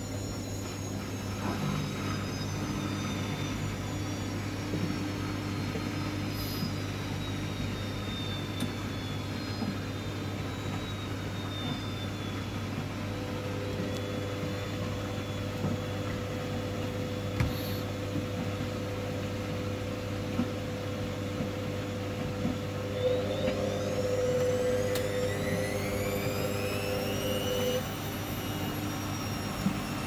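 Hoover front-loading washing machine running through its cotton 90 cycle: a steady hum with a motor whine that slowly falls in pitch over the first half. Later a second steady drone sets in, and near the end the whine rises in pitch as the drum speeds up, then the drone stops.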